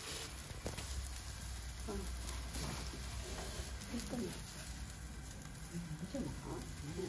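Negima yakitori (chicken and leek skewers) sizzling on a commercial gas grill burning charcoal, with a few small pops.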